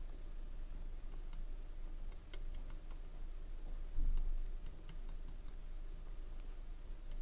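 Scattered light clicks and ticks, irregular and a few per second at most, over a steady low hum, with a dull thump about four seconds in.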